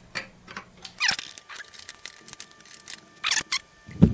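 Screwdriver driving a small screw into a motherboard standoff: scattered light clicks of metal on metal, with two short squeaks, one about a second in and one just past three seconds.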